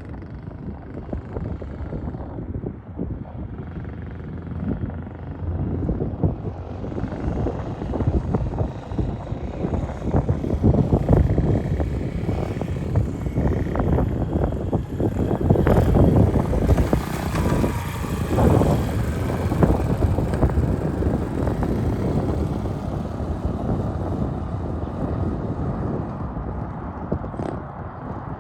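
Small pit bike engine running while being ridden, growing louder partway through.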